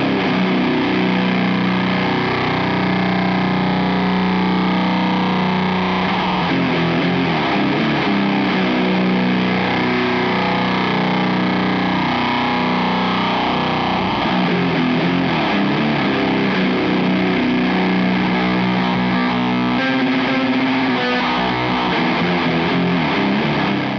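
Electric guitar through a Catalinbread Carbide distortion pedal with every knob at full, giving its thick HM2-style "chainsaw" distortion. It plays a heavy riff with long, held low notes.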